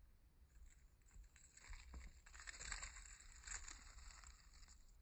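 Faint dry rustling and crackling of leaf litter and peat substrate, loudest between about two and four seconds in, as a Carolina wolf spider (Hogna carolinensis) takes down a cricket.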